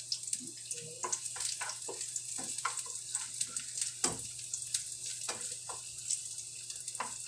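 Chopped garlic sizzling in olive oil in a frying pan, with a steady hiss. A wooden spatula scrapes and taps irregularly against the pan as the garlic is stirred.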